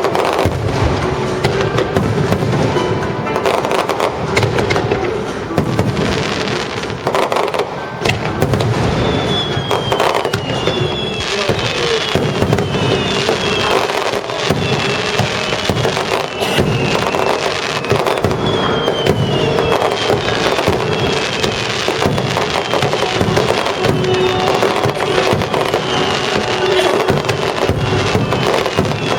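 Aerial fireworks bursting in rapid succession: many sudden bangs and crackles close together, over orchestral music playing on loudspeakers.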